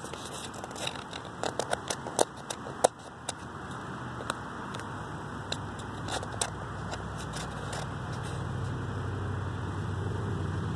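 Several sharp clicks, then a low mechanical hum, like a motor or engine running, that grows gradually louder from about four seconds in.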